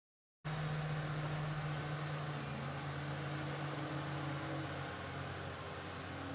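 Diesel engine of a Caterpillar log loader running steadily: a low engine hum under a broad rush of noise. The sound cuts in suddenly about half a second in.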